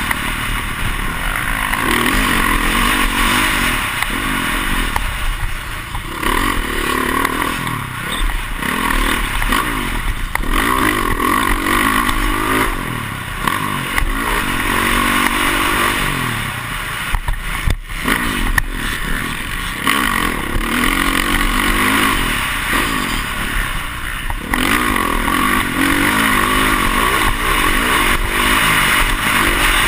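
Dirt bike engine heard close up from on board the bike while it is ridden round a motocross track. It revs up and drops back over and over, every couple of seconds, as the rider works the throttle and gears through the turns and straights.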